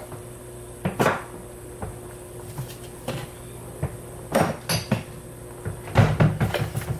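Irregular knocks and clicks of kitchenware, about a dozen sharp taps spread unevenly through the seconds, over a low steady hum.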